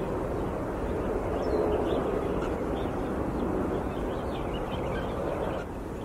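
Steady low outdoor rumble, like wind in a field recording, with faint short high bird calls through the middle. The rumble eases slightly near the end.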